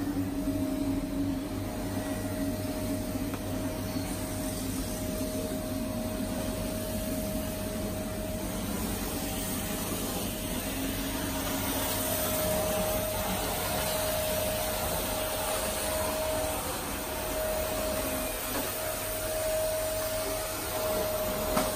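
Steady machine noise: a constant hiss with an even, high whine and a lower hum, unchanging throughout.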